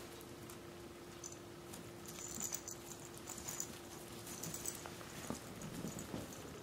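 Mal-Shi puppy playing with a plush toy on a puppy pad: soft scuffling, rustling and light bumps as it tugs and chews, with a faint intermittent high rattle. A faint steady hum stops about five seconds in.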